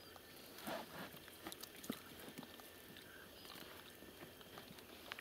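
Faint wet handling sounds of crucian carp being picked up off the floor of an inflatable rubber boat and dropped into a metal bucket, with a few soft slaps and taps.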